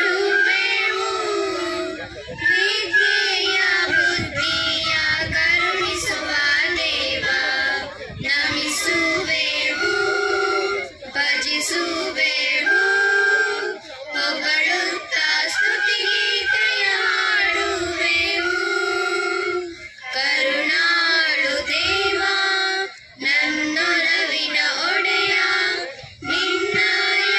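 A children's recorder ensemble playing a melody together in held notes, phrase by phrase, with short breaks between phrases.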